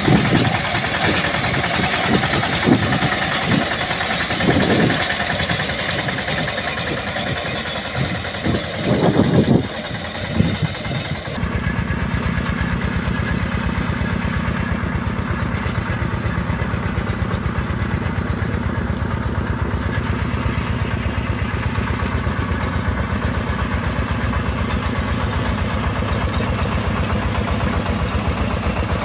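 A compact tractor's engine running under load while its side-mounted mower cuts grass, with uneven low bumps and surges. About 11 seconds in the sound changes abruptly to the steady engine of a self-propelled fodder cutter, a Sahib Chara Cutter 631, running with a fast even beat as it cuts green fodder.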